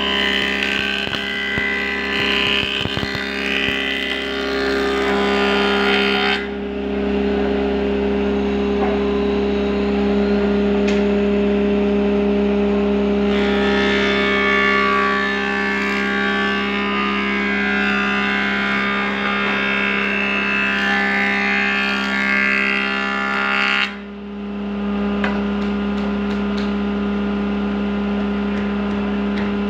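Jointer running with a steady motor hum while its cutterhead planes a board in long passes. The cutting noise rises for about six seconds at the start, again for about ten seconds in the middle, and returns near the end, with the machine humming on its own in between.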